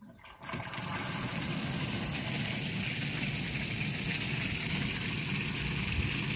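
Water gushing from a water trailer's tank outlet pipe through a float valve into a galvanized steel stock trough, starting about half a second in as the valve is opened and then running steadily.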